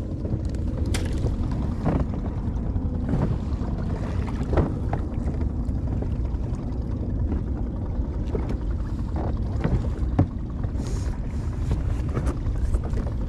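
Steady low rumble of wind and water around a small inflatable boat at sea, with scattered small knocks.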